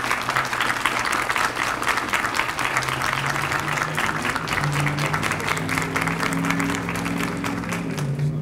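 Crowd applauding, a dense steady clapping that thins out and stops near the end. About three seconds in, a low steady hum of a few held tones comes in under it.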